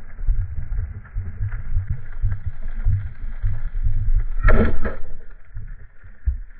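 Muffled underwater rumble through a camera housing, broken about four and a half seconds in by the sharp crack and short clatter of a speargun firing as its bands release.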